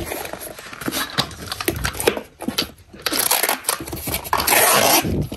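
A cardboard box's flaps folded and pressed shut with rustling and light knocks, then packing tape pulled off a handheld tape dispenser across the box with a rasping screech for about two seconds near the end.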